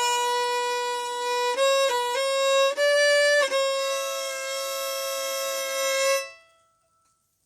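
Fiddle in sawmill (cross) tuning playing the closing phrase of an old-time tune: a few bowed note changes, then a long held final note with a second string sounding alongside. The bow stops about six seconds in and the note dies away quickly.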